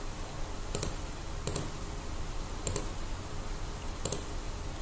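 Computer mouse clicking, four or five single clicks about a second apart, as letters are picked one by one on a phone's on-screen keyboard shown in a remote-desktop window.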